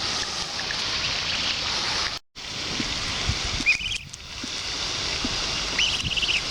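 Steady outdoor hiss of wind and water with two short, high, rapidly pulsed bird calls, about 4 and 6 seconds in. The sound cuts out completely for a moment just after 2 seconds.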